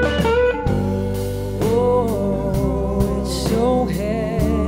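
Live blues-rock band playing: electric guitars, bass and drums, with a wavering, gliding lead melody over a steady bass and regular drum hits.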